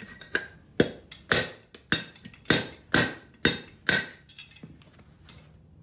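Hammer blows on metal driving a stuck wheel bearing out of an old wagon wheel's hub: eight sharp, ringing strikes at about two a second, stopping about four seconds in. The bearing is coming loose.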